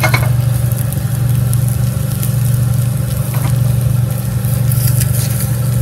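Steady low mechanical hum, with faint scrapes of a rubber spatula pushing half-set omelette eggs around a nonstick pan.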